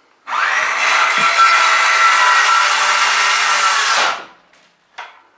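Cordless power saw cutting through an inch-thick wooden plank door, running steadily for about four seconds and then stopping. A single short knock follows near the end.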